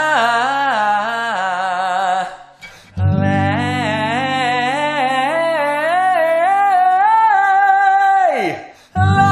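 Sung vocal scale exercise: a single voice runs quickly up and down a scale of notes over a held low accompaniment chord. It breaks off about two seconds in and restarts a moment later. The second phrase ends in a falling slide about eight seconds in, and a new phrase begins near the end.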